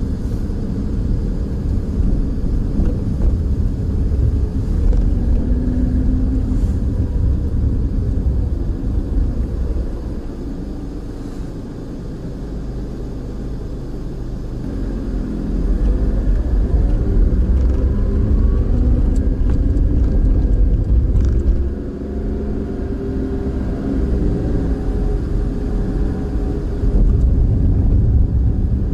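A car on the move: low engine and road rumble, with the engine note rising several times as it speeds up. It quietens for a few seconds around the middle.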